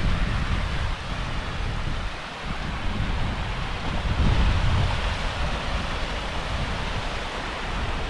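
Strong wind buffeting the microphone in rumbling gusts over the steady rush of a small waterfall cascading down rocks.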